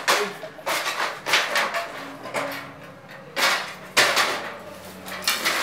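Metal stepladder being shifted and set against a wall: several rattling scrapes and knocks of its rails, with a sharper knock about four seconds in.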